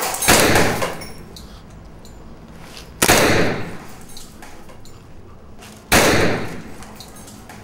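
Three loud, sharp impacts about three seconds apart, each ringing out for about a second.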